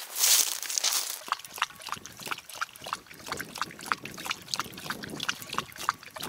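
A German shorthaired pointer chewing something wet and crunchy, making rapid irregular wet smacks and crunches, after about a second of rustling.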